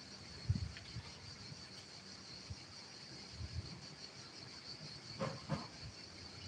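Insects chirring steadily, a high even buzz, with a couple of faint knocks about five seconds in.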